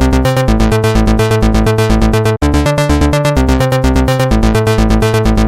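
Electronic dance music with a fast, steady beat and synthesizer chords, loud throughout, with a split-second break about two and a half seconds in.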